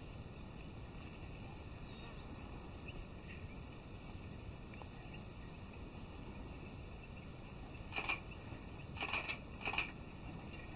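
African bush elephant blowing dust out of its trunk over its body in a dust bath: three short puffs of air close together near the end, over a steady low background noise.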